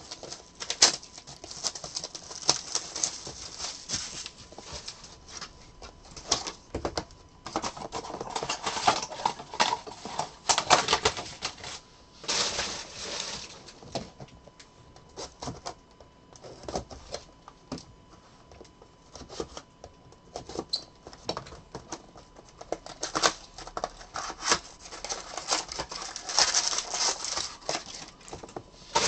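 Cardboard and plastic pack wrappers of a Bowman's Best baseball card box crinkling, rustling and tearing as the box is opened and its packs are handled. The noise comes in irregular bursts with many small sharp clicks.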